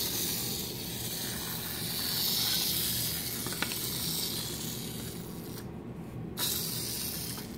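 Small clockwork motor of a wind-up toy tractor whirring steadily as the toy runs along a cardboard track groove in a board book. The whir briefly drops out about six seconds in, then resumes.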